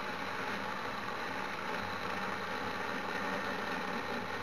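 42 V cordless electric mini chainsaw running steadily.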